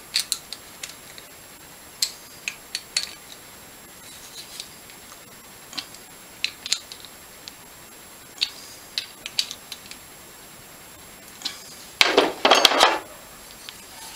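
Screwdriver turning and tightening small screws on a metal inlet tube bolted to a small engine's cylinder head: scattered light metallic clicks and clinks of tool on metal. About twelve seconds in, a short, louder clatter of metal parts being handled.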